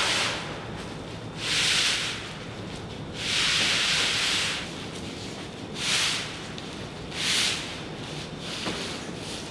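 A large sheet of printed paper or plastic being rolled up onto a tube by hand, rustling and scraping as it drags over the floor in five bursts, the longest about a second and a half just past the middle.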